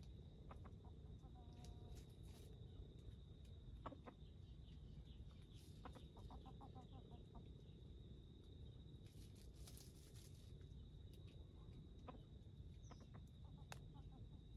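Faint red junglefowl clucking: a few short runs of quick soft clucks, over a steady high insect drone. Two brief rustling hisses come in, one about two seconds in and a longer one near ten seconds.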